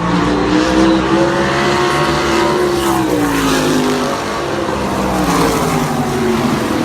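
Race car engines running at a racetrack, the engine note climbing and then falling away a few seconds in and dipping again near the end.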